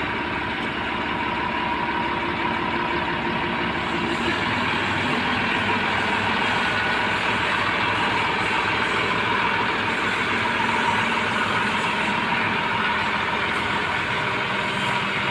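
TAFE 5900 DI tractor's diesel engine running steadily while it drives the front loader's hydraulics, lifting the bucket. The engine note shifts about four seconds in, and a steady high whine runs over it.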